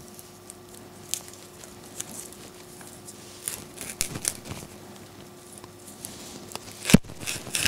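Dried, pounded beef sinew being torn apart by hand into thinner fibres: faint scattered dry crackling and tearing, with a sharp knock near the end.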